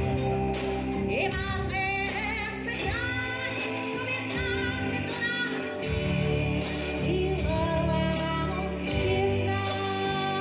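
Live pop-rock band with a steady drum beat, a woman singing long held notes over it.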